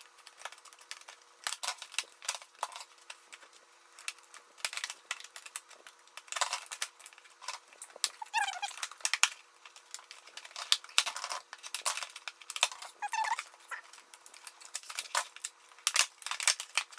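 Packaging of an airsoft pistol being opened and handled: a string of irregular clicks, crackles and scrapes from cardboard and plastic, with a few short squeaks.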